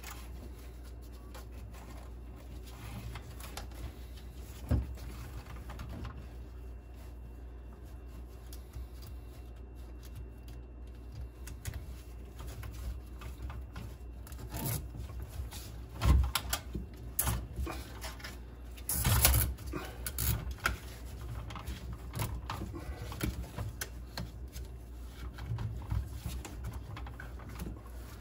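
Handling noise from zip ties being threaded and pulled tight around a boat's bilge pump: scattered small clicks and rubbing, with a few louder knocks a little past halfway and again a few seconds later, over a low steady hum.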